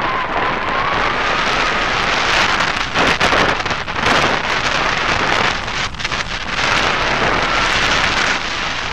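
Airflow rushing over a microphone mounted on a hang glider's wing in flight: a loud, steady wind rush that swells a few seconds in, with a faint high tone that wavers in pitch near the start and near the end.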